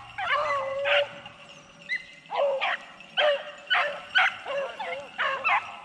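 Beagles baying on the track of a freshly jumped swamp rabbit: one drawn-out bay near the start, then a quick run of short barks at about three a second.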